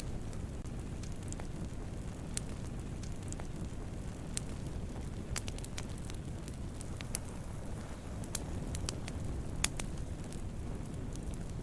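Wood campfire burning: a steady low rumble of flames with sharp, irregular crackles and pops of burning wood, one louder pop near the end.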